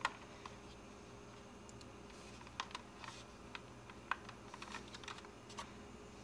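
Faint, irregular light clicks and taps of plastic model kit parts (a 1/48 Meng F-4G fuselage and wing) being handled and pressed together, more frequent after about two and a half seconds.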